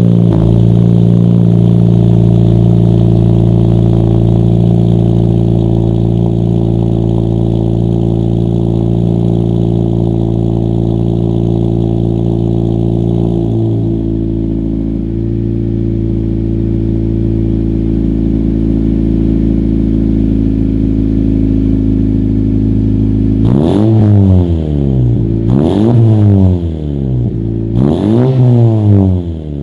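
Exhaust of a 10th-gen Honda Civic Si's 1.5-litre turbo four-cylinder through an aFe cat-back exhaust. It idles steadily just after start-up, the idle easing slightly lower about halfway through, then is blipped in three quick revs near the end.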